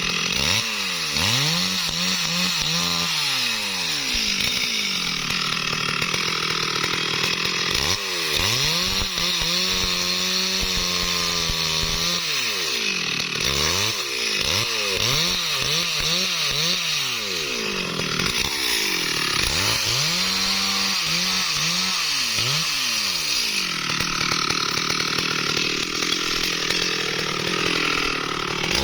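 Stihl MS 382 two-stroke chainsaw running hard while cutting wood, its engine pitch dropping and climbing back again and again as the throttle is eased and reopened.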